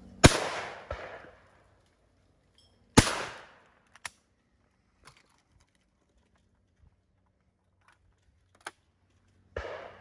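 Two shotgun shots about three seconds apart at a pair of clay targets, each with a short fading echo. The first is the loudest. A few faint clicks follow.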